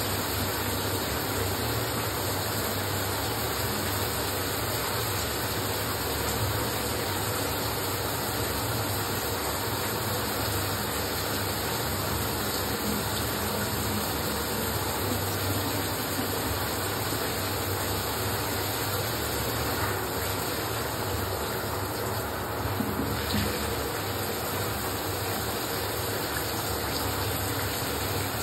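Steady rush of running water, holding an even level throughout.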